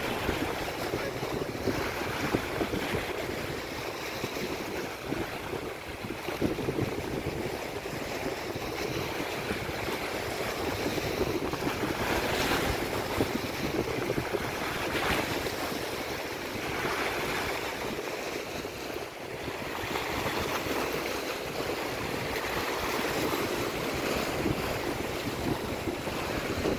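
Lake waves washing and breaking on the shore in strong wind, with louder surges of surf about halfway through, and gusts buffeting the microphone.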